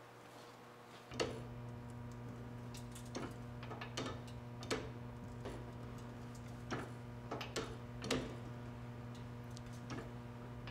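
Square broach being forced through a boring bar in an arbor press: irregular sharp clicks, one every half second to second, as the broach teeth shear their way down. A steady hum comes on suddenly about a second in.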